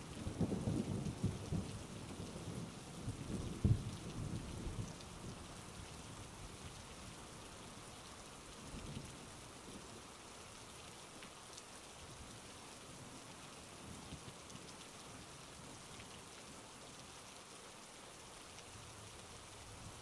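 Steady rain with a roll of thunder rumbling for the first few seconds and dying away; after that only the even sound of falling rain, with a few faint drips.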